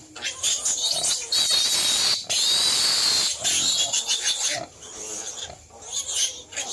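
Native pigs squealing in repeated high-pitched bursts. The longest squeal comes about a second in and lasts about two seconds, followed by shorter ones.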